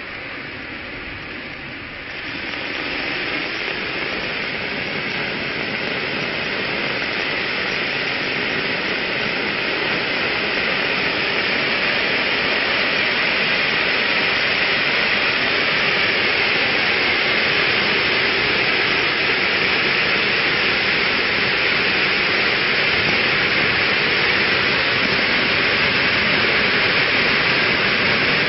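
Silver-rain ground fountain firework burning with a steady, loud hiss; it gets louder about two seconds in as the spray builds, then holds steady.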